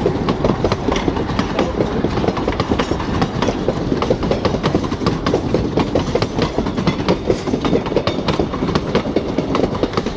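Durango & Silverton narrow-gauge passenger coaches rolling past: steel wheels clicking and clattering over rail joints over a steady rumble.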